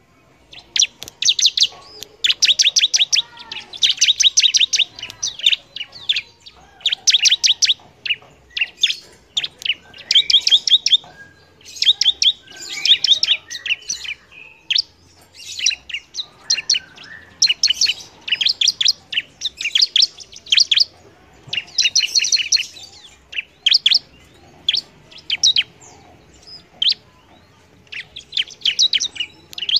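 Bar-winged prinia (ciblek) singing vigorously: rapid trills of sharp, high chirps in bursts of a second or so, repeated with short pauses.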